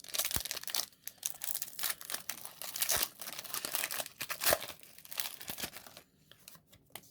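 Foil Pokémon booster pack wrapper crinkling and tearing as it is opened, with a few sharp clicks; the rustling stops about six seconds in.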